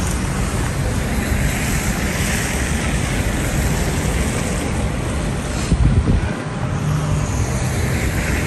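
Wind buffeting the microphone over the steady noise of passing city traffic, with a brief louder burst about six seconds in.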